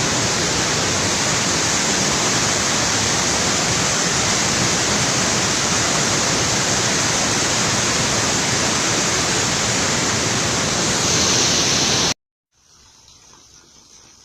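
Waterfall: a steady, loud rush of falling water that cuts off suddenly about twelve seconds in. After a half-second gap a much fainter noise follows.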